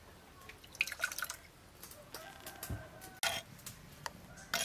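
Chili dipping sauce pouring from a wooden mortar into a small ceramic bowl: soft drips and trickling with a few light clicks, a little louder about a second in, past the middle and near the end.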